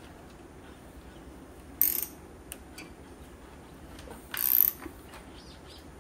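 Ratchet wrench clicking in two short bursts, about 2 and 4.5 seconds in, with a few lighter clicks between, as it is swung back while the engine is turned over by hand to pull the new fuel pump chain through.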